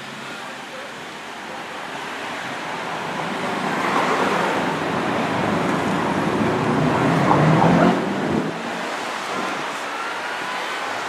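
Street traffic with a sport motorcycle riding past close by: its engine grows louder over several seconds, peaks about eight seconds in, then drops away quickly.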